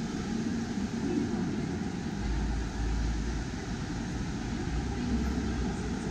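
Steady background hubbub of a busy public place, with faint distant voices. A low rumble joins in about two seconds in.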